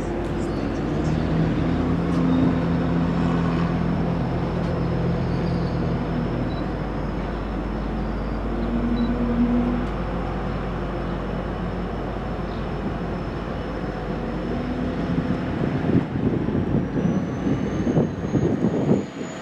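MBTA commuter train passing: a diesel locomotive's engine drones steadily over the rumble of the train rolling, then a rapid run of wheel clatter over rail joints near the end.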